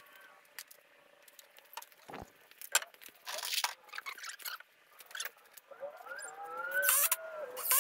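Pressure-treated lumber being handled on a concrete floor: scattered knocks and clicks, a low thump about two seconds in and short scraping sounds. Near the end a short wavering tone rises and falls.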